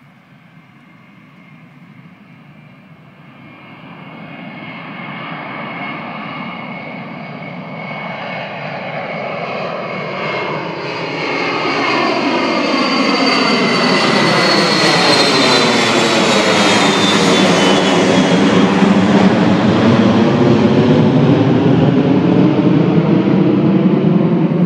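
Boeing E-3 Sentry AWACS jet with four TF33 turbofans at take-off power, climbing out and passing overhead. The jet noise builds steadily from faint to loud, a high whine drops in pitch as the aircraft passes about halfway through, and a heavy rumble follows as it climbs away.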